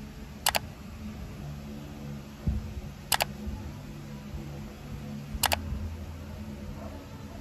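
Three sharp double clicks like a camera shutter, about two and a half seconds apart, over a low steady hum, with a soft handling thump before the second click.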